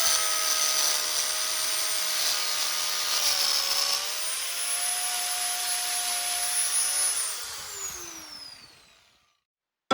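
Angle grinder fitted with a Manpa Multi Cutter belt-driven carving disc, running with a steady high whine whose pitch dips briefly as it works wood. About seven seconds in it is switched off and winds down with a falling whine, fading out.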